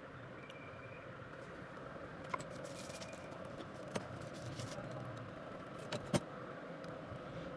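A few sharp clicks of small hard objects over a steady background hum, the loudest pair about six seconds in.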